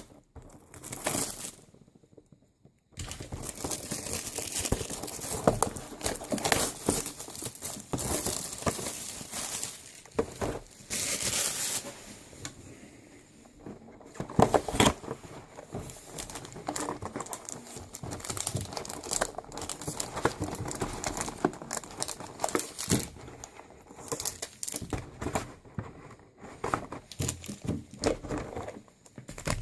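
Trading-card pack wrappers and box packaging crinkling and tearing as the packs are ripped open by hand, with scattered sharp crackles and clicks.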